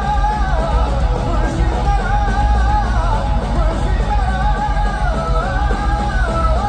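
Live rock band playing loudly through a club sound system, with a strong low bass and a lead melody of long held notes that slide between pitches, dropping near the end.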